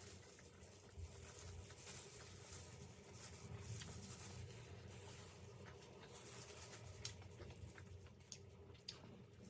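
Faint close-up chewing and mouth sounds of a person eating vegetable momos (steamed dumplings): soft, irregular wet clicks and smacks.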